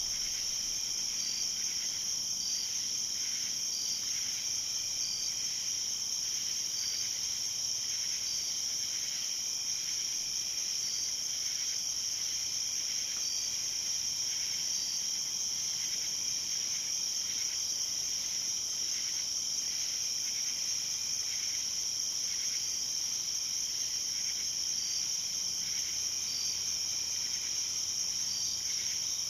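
Night insect chorus: a steady, high-pitched trill, with short chirps from another insect repeating about once a second.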